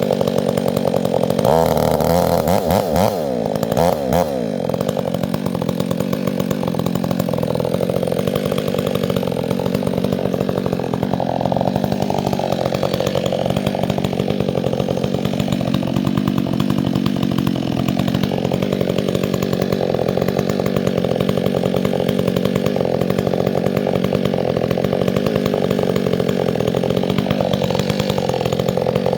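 Two-stroke chainsaw running under load, cutting wood. Its engine pitch swings up and down between about two and four seconds in, then holds fairly steady with small dips.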